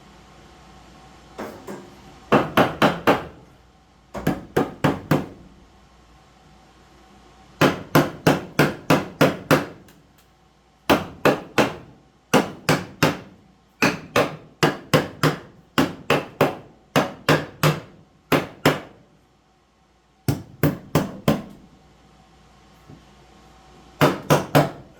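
Hammer blows on wood in quick runs of three to seven strikes, with short pauses between runs, fixing a wooden support block in place under the subfloor.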